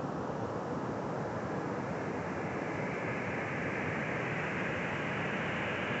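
Ocean surf washing up a sandy beach: a steady rushing wash that grows hissier from about halfway through as the foam runs in.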